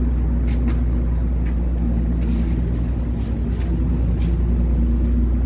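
Steady low drone of a large motor ship's engines, with a few steady hum tones above it and faint scattered knocks.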